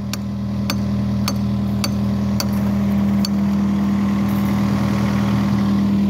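Engine idling steadily, its exhaust piped through a flexible aluminium duct onto a frozen track to thaw it. A series of sharp ticks sounds at a steady pace through the first half.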